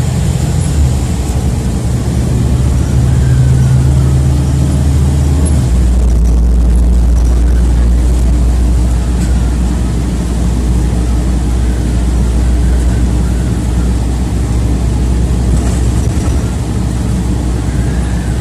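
City bus engine and drivetrain droning from inside the moving bus, with road noise; the low hum drops in pitch about six seconds in.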